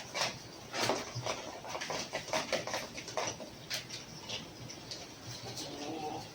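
Chickens clucking, with a drawn-out hen's call near the end, over scattered sharp clicks and scrapes of hand work.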